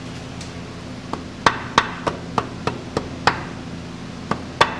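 Hammer tapping a seal installation tool to drive a new front pump seal into a Turbo 350 automatic transmission: about ten sharp metallic knocks at roughly three a second, with a short pause before the last two.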